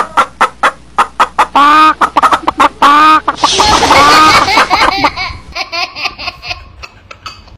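Chickens clucking in quick runs, then a toddler crying and wailing loudly in the middle; near the end a baby laughing in short bursts.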